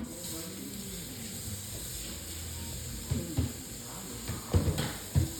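Steady hissing noise that starts abruptly and holds even throughout, with faint voices underneath.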